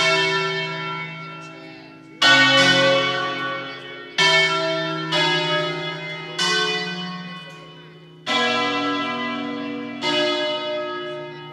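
Church bells of an eight-bell tower, struck one at a time in a slow melodic sequence of seven strokes about one to two seconds apart. Each bell rings on and fades under the next, in a preset solemn 'concerto' played automatically by the tower's ringing system.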